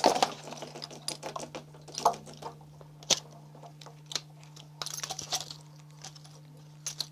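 A brass temperature-and-pressure relief valve being screwed by hand into a water heater's relief port: scattered small clicks, taps and scrapes of metal on metal and of handling. A faint steady low hum runs underneath.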